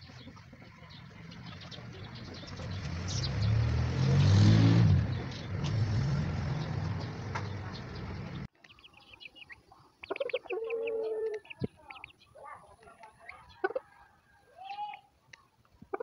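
A low rumble swells to a peak a few seconds in and then fades. After a sudden cut about halfway through come hens clucking and giving short calls, with some pecking clicks.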